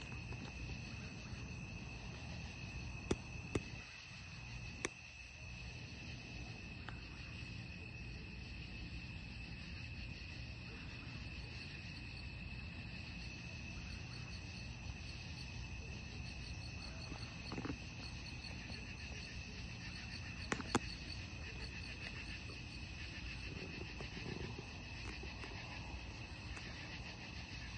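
Chorus of night-calling insects: a steady, unbroken high trill with a fainter pulsing buzz above it. A few sharp clicks stand out, a cluster about three to five seconds in and two more past the middle.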